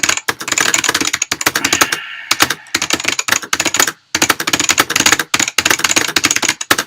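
Fast touch typing on a Matias Tactile Pro mechanical keyboard with clicky Alps switches: a rapid, dense run of key clicks, with brief pauses about two and four seconds in.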